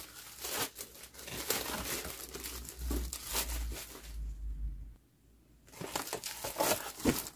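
Clear plastic wrap around a pack of kraft scrapbook paper crinkling as it is handled and pulled, with a pause of about a second and a half past the middle before the crinkling starts again.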